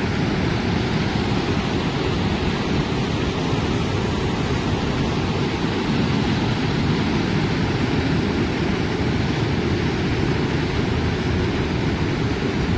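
Waterfall and river rapids rushing over rock ledges: a loud, constant, low, even rush of water without breaks.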